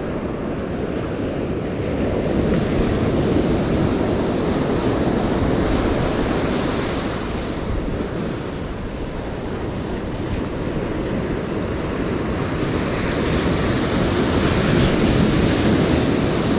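Ocean surf breaking and washing up the beach, swelling twice, with wind buffeting the microphone.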